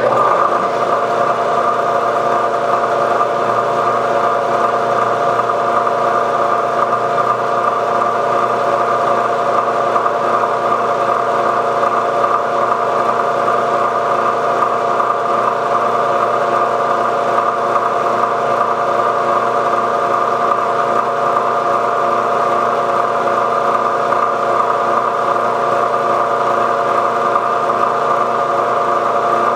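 Milling machine spindle running at a steady speed, turning an edge finder: a steady motor-and-drive hum with a few fixed tones that comes on suddenly.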